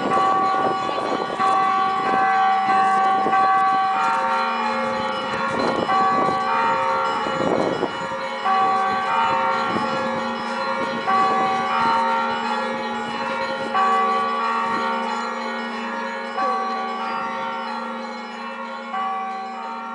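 Several church bells of different pitch ringing together in a bell tower, with fresh strokes every second or two over long ringing tones; the ringing grows fainter near the end.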